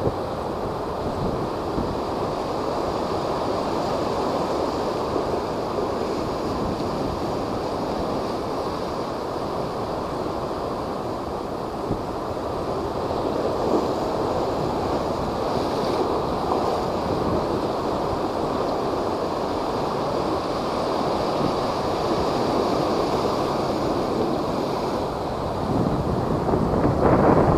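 Typhoon-driven high waves surging and breaking, with strong wind buffeting the microphone; a louder surge near the end.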